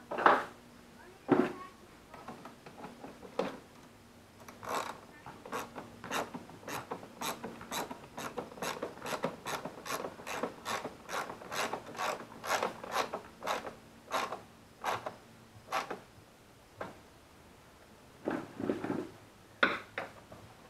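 Hand socket ratchet being worked in the engine bay, clicking steadily at about two to three strokes a second for roughly eleven seconds. A few louder knocks of tools and parts being handled come at the start and near the end.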